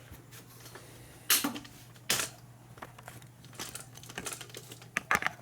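Small metal hardware (nuts and bolts) clinking and knocking as it is handled: two louder clanks in the first half, then a run of light clicks near the end, over a steady low hum.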